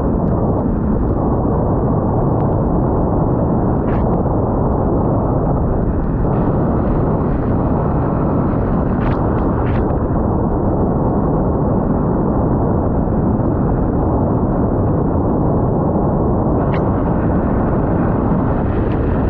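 Steady low rumble of wind buffeting the microphone of a GoPro Hero 9 on the move, with a few faint ticks.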